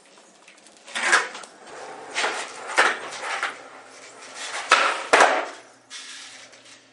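Skateboard wheels rolling on a bare concrete floor, broken by a series of sharp clacks of the board striking the floor. The two loudest clacks come about half a second apart near the end, the pop and landing of a trick.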